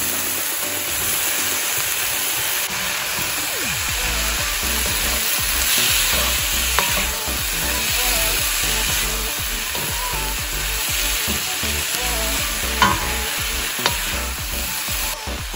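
Diced pineapple, onion and carrot sizzling in oil in a nonstick wok as a wooden spatula stirs them, with a few sharp taps of the spatula against the pan.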